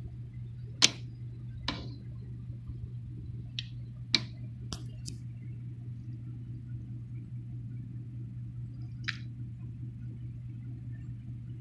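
Steady low hum with about seven short, sharp clicks or taps scattered over it. The loudest comes about a second in, a cluster follows a few seconds later, and a last one comes well after.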